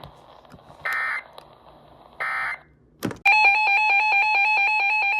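Two short bursts of EAS/SAME digital data tones, the end-of-message bursts of a severe thunderstorm warning, then a click about three seconds in. After that a loud electronic alert tone starts, switching rapidly and evenly between a low and a high pitch.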